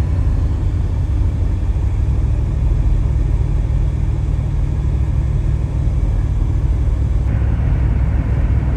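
Steady low rumble of a running car, with no distinct events.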